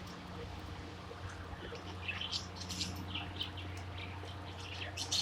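Budgerigar chirping in quick, short calls that start about two seconds in and grow busier toward the end, over a low steady hum.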